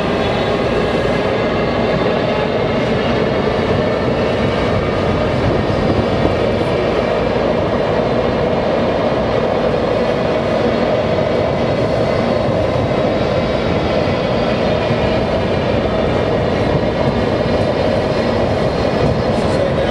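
Washington Metro Red Line subway train running steadily between stations, heard from inside the front car: a continuous rumble of wheels on rail with a faint steady whine.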